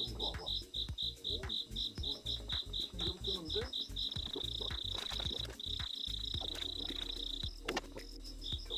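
Night insects calling, cricket-like chirps pulsing about four times a second, running into a continuous trill for a few seconds in the middle.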